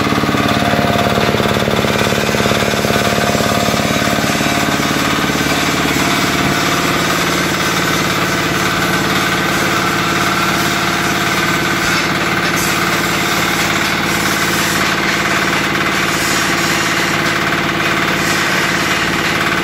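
Yanmar diesel engine driving a mortar mixer, running steadily with a fast knocking beat.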